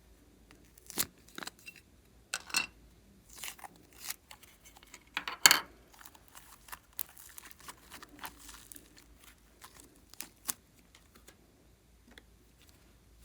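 Scattered sharp clicks and short crackles from hands working slime with makeup and clay mixed in, the loudest a longer crackle about halfway through.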